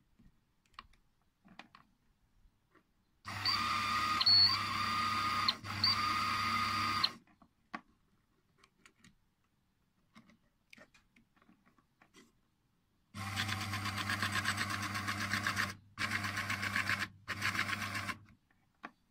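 Raymarine ST1000/ST2000 tillerpilot's small electric motor and belt-and-screw drive running the push rod, powered straight from clip leads, in two runs of about four and five seconds, each with brief stops. The first run is a steady whine. The second run, the other way, carries a fast rattle: the noise on the outward stroke, which the owner puts down to the drive bearing floating 2 to 4 mm because the disc that should retain it has been destroyed.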